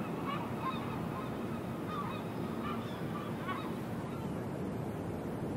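Gulls calling in short repeated cries over a steady wash of surf. The cries stop about two-thirds of the way through, leaving the sound of the waves.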